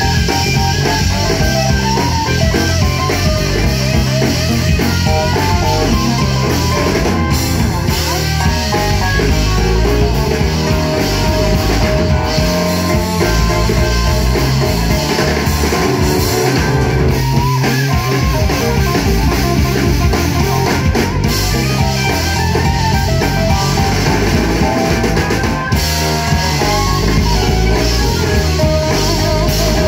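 A live rock band playing an instrumental passage: electric guitars over a drum kit, with keyboards, at a steady beat.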